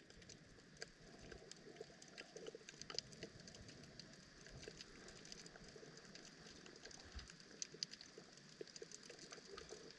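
Faint underwater ambience picked up by a submerged camera: a soft hiss scattered with irregular small clicks and crackles.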